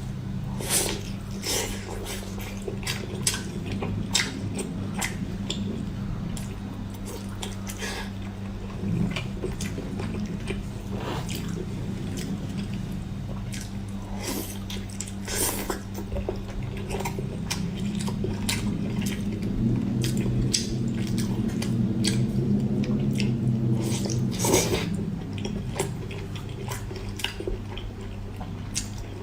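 Close-miked chewing of pork belly: wet smacks and many short mouth clicks at an uneven pace, over a steady low hum.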